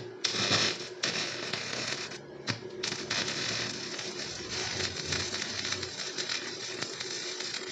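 Angle grinder cutting into a thick steel UPN channel with a steady running tone and a hiss of disc on metal, breaking off briefly about two and a half seconds in. These are shallow relief cuts across the top of the channel, made to weaken it so that it can be bent.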